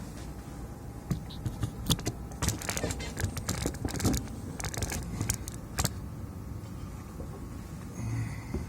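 Scattered light clicks and taps of small plastic gear being handled, bunched in the first six seconds and thinning out after, over a faint steady hum.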